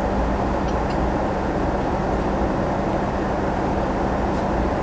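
Steady cabin noise of a Boeing 777-200ER airliner in flight: a constant even roar of engines and rushing air, with a faint steady low hum.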